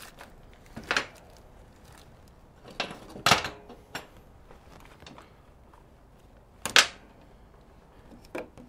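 Metal hand tools clinking and clattering as they are handled: about five separate sharp knocks with quiet gaps between them.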